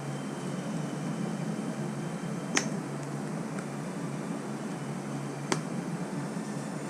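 Steady background hiss with a low hum, broken by two sharp clicks about three seconds apart.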